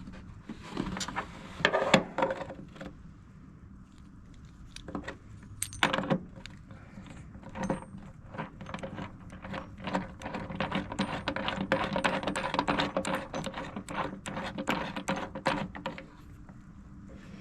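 Hand tools and loose metal parts clinking as a worn door striker is unscrewed from a truck's door pillar with a T50 Torx bit: a few knocks early on, then a long run of rapid metallic clicking.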